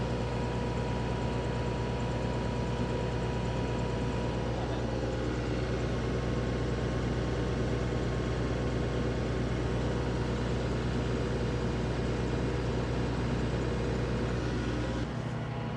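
Kubota L3560 tractor's diesel engine running steadily, driving a WoodMaxx WM-8M PTO wood chipper, with a constant low hum and machine noise. The sound changes abruptly near the end.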